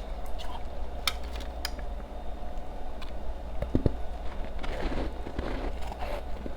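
Close-miked chewing and crunching of ice cubes: a few sharp cracks in the first couple of seconds, then a run of grinding crunches near the end.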